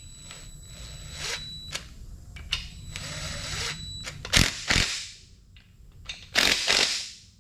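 DeWalt cordless drill running in short bursts with a socket, driving in the bolts of a replacement timing-chain guide on an LS V8 block. There are two sharp clicks a little past halfway, and the loudest run comes near the end.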